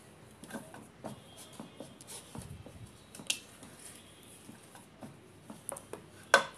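Hands kneading soft dough in a bowl: irregular quiet squishes and soft knocks of the dough against the bowl, with a sharper knock near the end.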